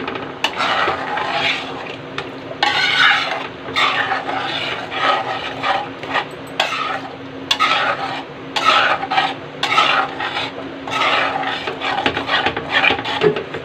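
Metal spatula stirring and scraping around a kadhai through a thin, watery curry of peas and paneer, in repeated strokes about once a second. A steady low hum runs underneath.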